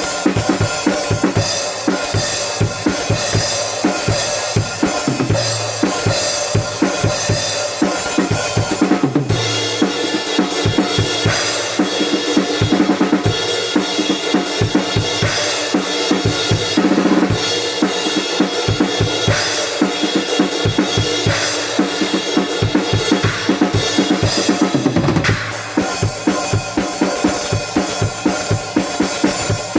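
Drum kit playing a driving beat of bass drum and snare under a rock song, with bass and other instruments holding notes. The arrangement changes section about nine seconds in and again about twenty-five seconds in.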